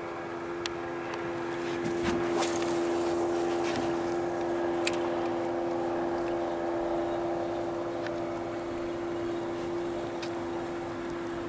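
Boat's outboard motor running steadily at low trolling speed, with a few light clicks over it.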